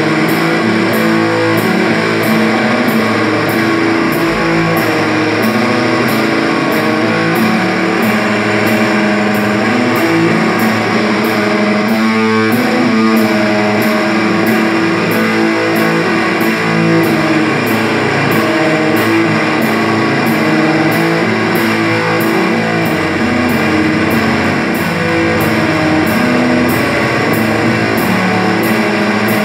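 Live instrumental rock band playing loud: layered electric guitars, bass and drums over a steady beat, heard from the hall.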